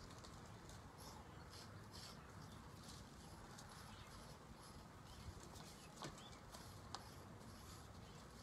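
Near silence: faint background noise with a few soft high ticks and two sharp clicks about six and seven seconds in.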